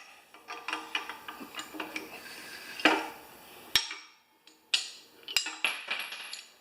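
Metal clicks, knocks and rattles from working a homemade bearing press on a lawn tractor's mower-deck spindle, with two sharper clicks about four and five and a half seconds in, as the press is taken as far as it will go.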